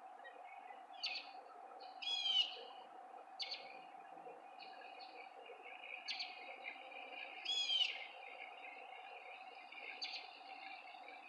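A bird calling repeatedly outdoors: short, sharp calls every second or two, two of them louder with a falling sweep, over a steady hum.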